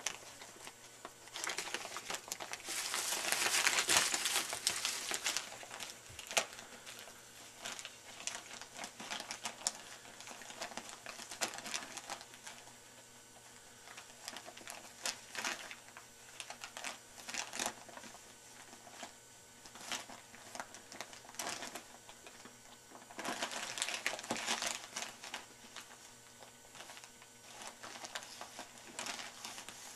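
Gift wrapping paper crinkling and rustling in irregular bursts as a cat paws, bites and rolls on a wrapped present. There are louder spells a few seconds in and again about three-quarters of the way through.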